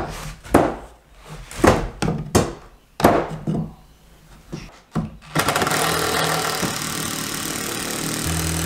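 A few sharp wooden knocks as a 2x4 blocking piece is set between floor joists, then, about five seconds in, a cordless drill starts and runs steadily, driving a screw into the blocking.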